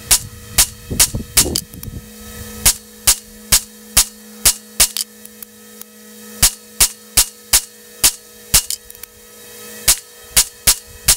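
Mossberg MC1sc 9mm subcompact pistol firing hand-loaded rounds, several shots a second in quick strings with short pauses between. The gun cycles without a stoppage. A fan hums steadily underneath and stops shortly before the end.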